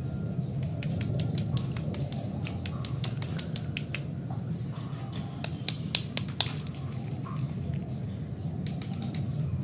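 Plastic lollipop wrappers crinkling and crackling in the fingers as they are handled, a scatter of sharp clicks that comes thickest about a second in and again around five to six seconds in. A steady low hum runs underneath.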